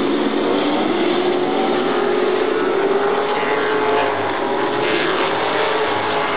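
Several race car engines running on a paved oval track, a continuous loud drone whose pitch slowly rises and falls as the cars lap.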